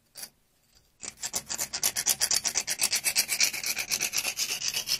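A hand tool scraping fast back and forth over a rusty steel water pipe, starting about a second in. It is cleaning rust and paint off the pipe around a leak before gas welding.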